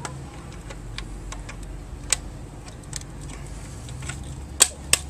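Scattered light clicks and taps of hand tools working on the metal and plastic parts of a garage door opener being dismantled, with a sharper click about two seconds in and two loud snaps near the end.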